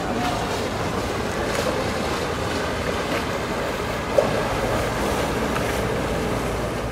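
Canal water sloshing and lapping against the stone quayside and wooden mooring poles, a steady wash of water noise with a low rumble under it. A single brief sharp thump stands out about four seconds in.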